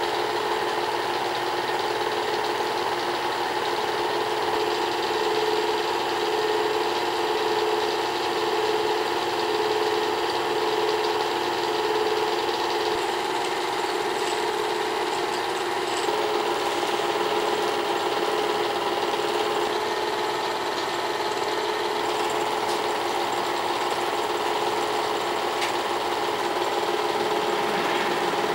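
Small-gauge home-movie film projector running: its motor and film transport make a steady mechanical hum.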